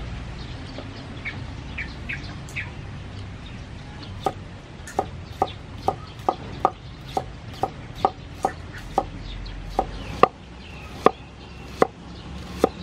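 Cleaver slicing through a shallot onto a wooden cutting board: sharp, regular knocks about two a second, starting about four seconds in.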